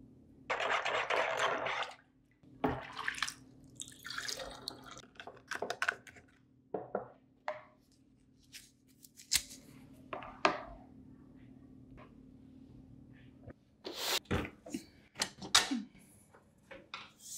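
Homemade vinegar cleaning solution being mixed in a plastic basin: drips from a dropper, a short pour of liquid, then splashing as a microfiber window scrubber is dipped and worked in the liquid. Near the end there is a run of sharp knocks and clicks.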